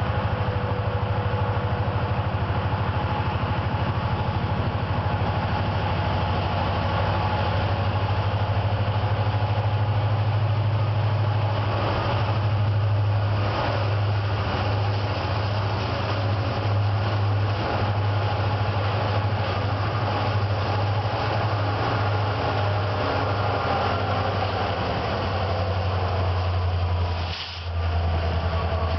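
Montana Rail Link SD70ACe helper locomotives, with two-stroke EMD 710 diesel engines, shoving on the rear of a heavy loaded grain train up the grade and passing close by: a steady, loud low diesel drone with the rumble of the train rolling on the rails.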